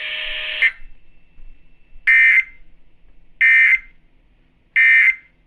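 Emergency Alert System end-of-message data tones from a weather-radio broadcast: three identical short, shrill digital bursts about 1.4 s apart, marking the end of the warning. Before them, a steady hiss cuts off suddenly less than a second in.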